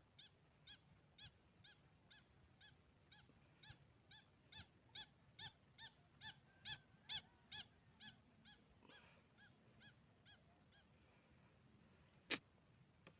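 A bird calling: a short rise-and-fall note repeated about twice a second, growing louder and then fading away. A single sharp snap follows near the end.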